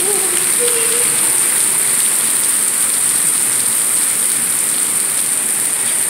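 Heavy rain pouring onto the pavement and the parked cars: a steady hiss thick with the patter of drops.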